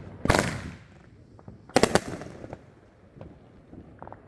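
Aerial firework bursting overhead: a sharp bang about a third of a second in, then a louder cluster of crackling bangs near two seconds, followed by a few scattered smaller pops.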